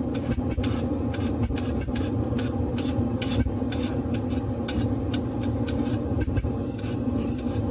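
Steady mechanical drone of running shop equipment, with scattered sharp ticks and crackles from a freshly oil-quenched steel knife blade.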